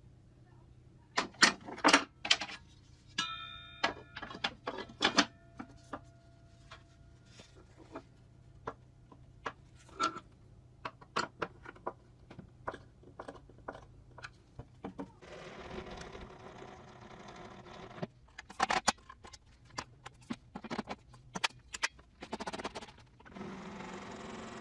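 Handling noises: a string of sharp clicks and knocks, with a brief metallic ring about three seconds in and two stretches of sliding or rubbing hiss in the second half.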